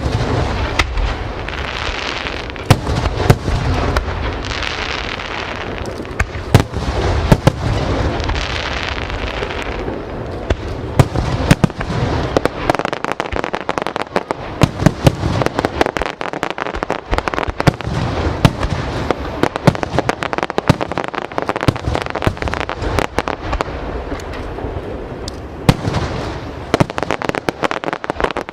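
Aerial fireworks going off in a dense, unbroken barrage: many sharp bangs and cracks one on top of another. Through the first third there is also a constant crackle and a low rumble.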